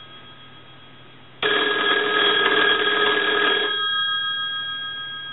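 Twin brass bells of a wooden country-store wall telephone ringing on an incoming ring signal. The ring starts suddenly about a second and a half in, lasts about two seconds, then the bell tones die away slowly. It shows the repaired phone ringing in on a ring cycle.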